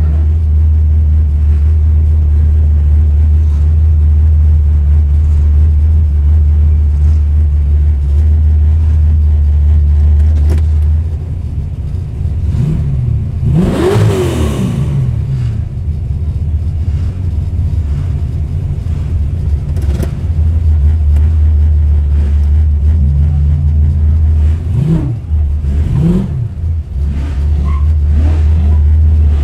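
1970 Ford Falcon XW GT's V8 engine running at a low, steady rumble, revved up and back down once about halfway through, then given two short throttle blips near the end.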